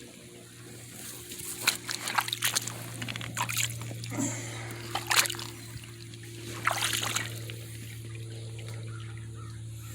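Shallow creek water splashing and trickling in several short bursts as it is disturbed, over a steady low hum.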